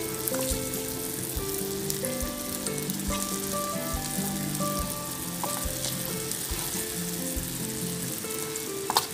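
Balls of dosa batter deep-frying in hot oil in an iron kadai, a steady crackling sizzle. A sharp click comes just before the end.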